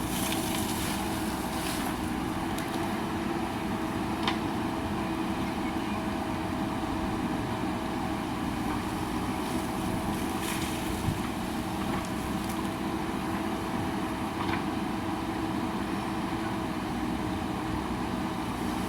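JCB backhoe loader's diesel engine running steadily, with a few faint clinks.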